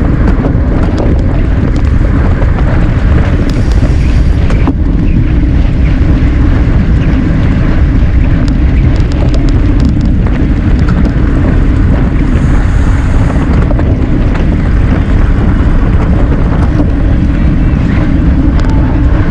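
Heavy wind buffeting on a bike-mounted action camera's microphone as the road bike races at speed, a loud steady rumble.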